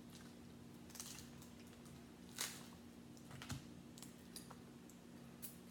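Faint clicks and cracks of cooked crab leg shells being snapped and picked apart by hand, a handful of them, the sharpest about halfway through, over a low steady hum.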